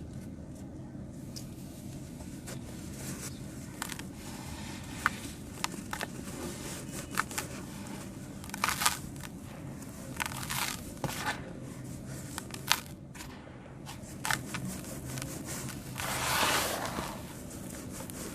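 Dried sand-cement chunks being crushed and crumbling: scattered sharp cracks and snaps, with a longer gritty crumble near the end.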